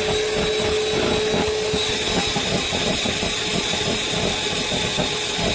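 Electric hand mixer running at a steady speed, a steady motor whine over the churning of its beaters whipping heavy cream in a glass bowl.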